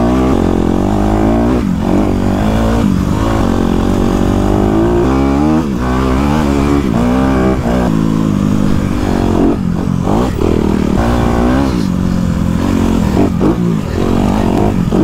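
Motocross dirt bike engine ridden hard on a dirt track, heard from on the bike: the engine note climbs with the throttle, then drops sharply several times as the rider shifts or rolls off, over and over.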